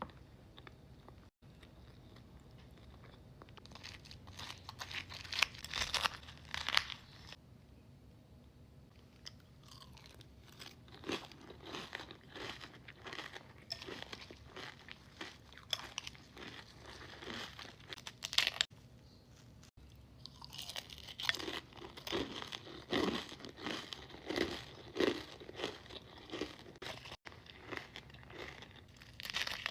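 A person eating close to the microphone: bites and crunching chews of crisp food in irregular bursts, starting a few seconds in.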